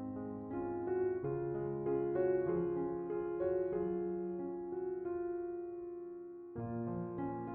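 Background music: a slow piano melody over held chords, with a new chord struck about six and a half seconds in.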